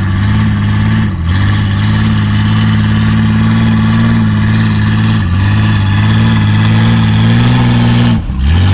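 Ford Bronco's engine held at high revs as its tyres spin in soft mud, the truck stuck and not climbing out. The revs dip briefly about a second in, around five seconds in, and near the end.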